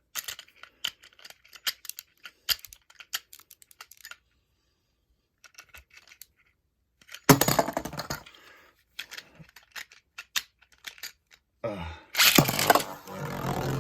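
Plastic clicking as a Beyblade top is fitted to a string launcher, then two loud noisy bursts, the first about seven seconds in and the second near the end, as the launcher is pulled and the top is ripped into the stadium.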